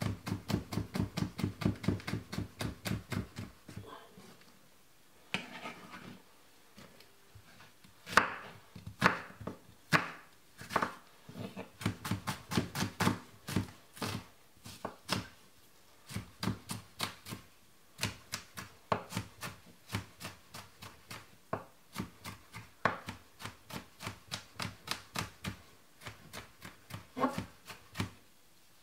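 Chef's knife chopping vegetables on a wooden cutting board, each stroke a sharp knock of the blade on the wood. It starts with a fast, even run of about four strokes a second, pauses for a few seconds with only a couple of strokes, then goes on in uneven runs of chopping, with a short break near the end.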